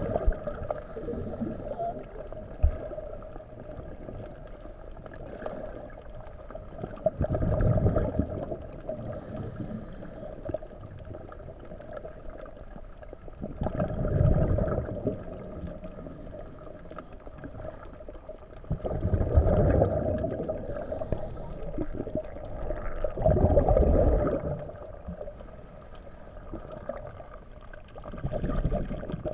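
Scuba diver's exhaled breath bubbling out of the regulator, five gurgling bursts roughly every five seconds, over a steady faint hum.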